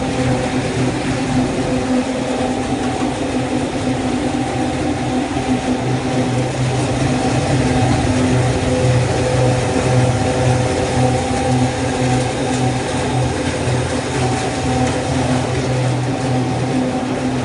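Screw-type oil expeller press running under load: a loud, steady mechanical drone with a constant motor hum, unchanging throughout.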